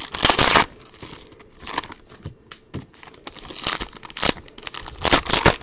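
Trading-card pack wrappers being crinkled and torn open, in irregular bursts of crackling: a longer one at the start, then several shorter ones.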